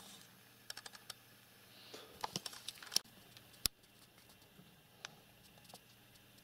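Faint wet clicks of a cat licking its fur, then scattered light taps, with two sharp clicks around three seconds in.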